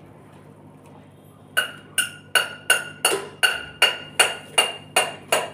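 A spoon stirring tea in a cup, clinking against the side in an even rhythm of about three strikes a second, starting a second and a half in.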